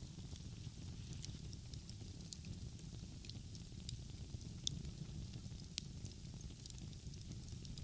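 Wood fire crackling, with irregular sharp pops (the loudest about two, four and a half and six seconds in) over a steady low rumble.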